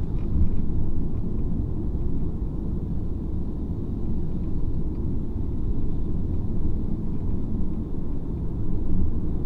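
Steady low rumble of a 2019 Mercedes-AMG C43's twin-turbo V6 and road noise, heard from inside the cabin while cruising at an even pace.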